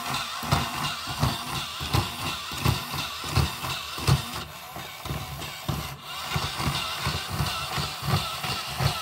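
Insect-a-zoid toy robot walking on a wooden floor: its feet tap about three times a second over the steady whir of its electric motor and plastic gear train. The pinion gears now sit clear of the crown gear, so the gearbox runs without the rubbing noise it used to make.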